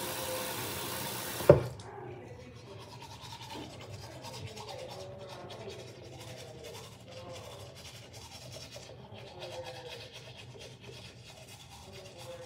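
Manual toothbrush scrubbing teeth, a soft scratchy rubbing. Before it, a steady hiss is cut off by one sharp knock about a second and a half in.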